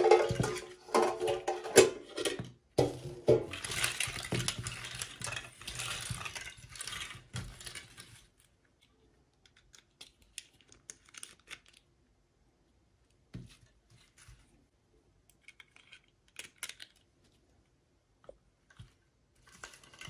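Hands unboxing small toys: dense rustling and crinkling of packaging for about eight seconds, then scattered light clicks and taps of small pieces being handled.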